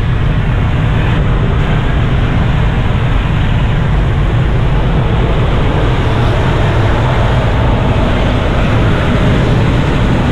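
Steady, loud drone of a jump aircraft's engines and airflow, heard from inside the cabin; it stays even throughout, heaviest in the low end.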